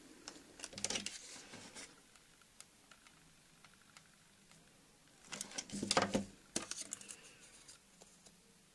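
Hands handling foamiran petals and a hot glue gun: soft rustles and small clicks in two short clusters, about a second in and again around six seconds in.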